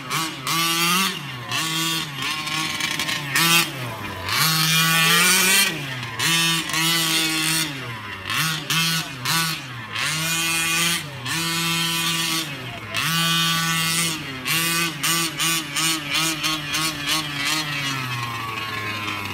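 Small two-stroke petrol engine of a Losi Mini WRC 1/5-scale RC rally car, revving up and down in repeated throttle bursts with longer pulls in between, and a run of quick short blips near the end.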